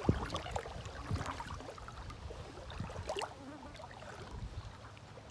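Wind rumbling on the microphone, with light lapping and splashing of shallow water.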